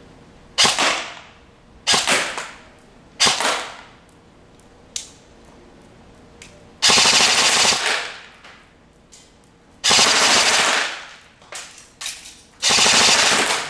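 A&K SPR airsoft electric rifle, with a version 2 gearbox, firing: three short bursts, then three longer full-auto bursts of under a second each, with a couple of smaller bursts between them.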